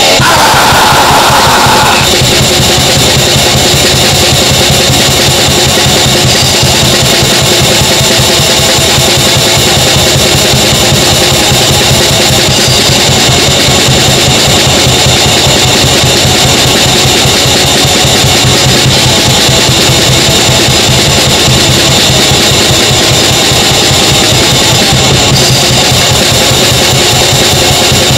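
Raw black metal: distorted electric guitars and drums in a dense, steady wall of sound. A higher tone stands out over the first two seconds, then stops.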